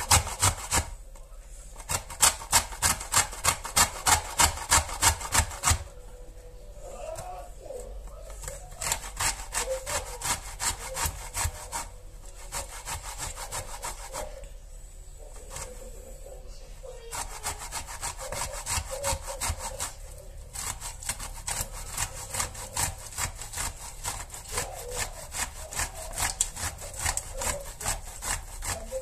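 Lemon peel being grated on a hand grater: rhythmic rasping strokes about three a second, in runs broken by short pauses.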